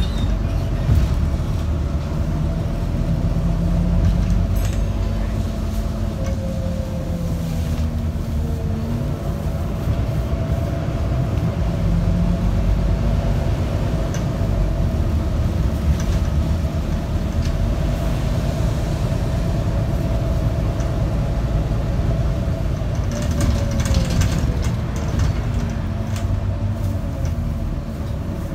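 Cabin noise inside a moving Volvo B9TL double-decker bus: steady diesel engine and drivetrain rumble with road noise and a held whine. The pitch falls twice as the engine changes speed, about a quarter of the way in and again near the end, and a few loose rattles sound over it.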